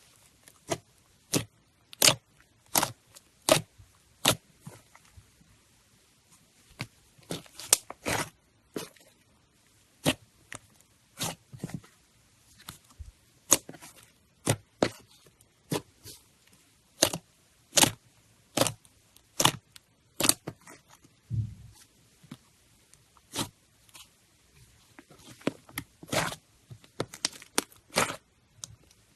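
Slime being squeezed and pressed by hand, giving irregular sharp pops and clicks of trapped air, roughly one or two a second.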